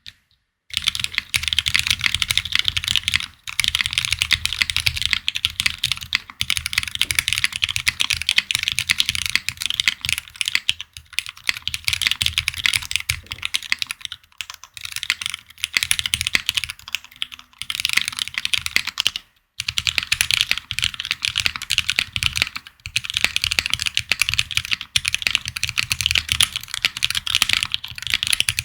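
Fast typing on a Haven 65 custom mechanical keyboard with lubed Cherry Hyperglide Black linear switches, GMK Katakana keycaps and an aluminum plate: a dense stream of keystrokes, broken by short pauses every few seconds.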